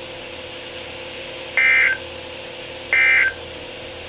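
Midland weather alert radio beeping: two short, identical electronic beeps about a second and a half apart, over a low steady hiss and hum from the radio.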